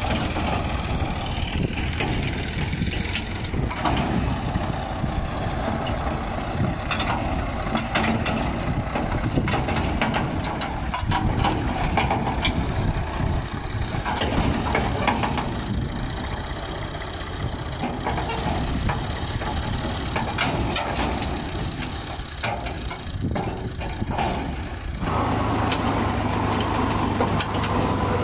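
Old Fiat 480 tractor engine running steadily while driving a wheat thresher: a dense mechanical din with scattered short knocks. Near the end it settles into a steadier hum.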